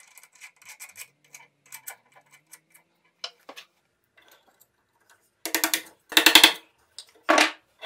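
Light metal clicks and ticks as a ball bearing is fitted onto a drill press spindle. About halfway through comes a rapid run of hammer taps driving the bearing on by beating rather than pressing, followed by one more short burst of taps near the end.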